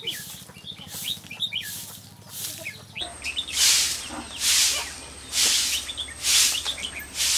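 Short-handled broom sweeping packed earth, swishing in regular strokes a little under once a second, with birds chirping in the background.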